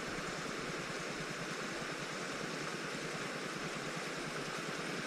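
Steady rush of flowing creek water, an even hiss with no rhythm or breaks.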